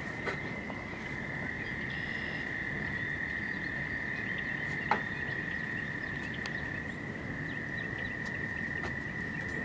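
A dense chorus of frogs calling, heard as one continuous high trilling drone with no breaks. A sharp knock cuts through about five seconds in.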